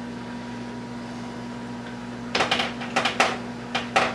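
A steady low hum, then from about two seconds in a quick run of taps, knocks and soft scrapes as slices of buttered rye bread are laid into a metal griddle pan and pressed down by hand.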